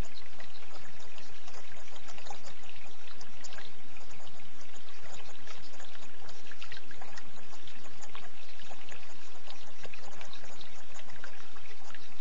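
Running water trickling and splashing steadily, an even, unbroken flow.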